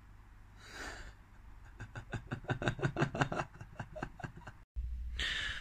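A person laughing quietly in quick breathy pulses, about five a second, for roughly two and a half seconds, after a short breath about a second in. Near the end the sound cuts off suddenly and a different background hum takes over.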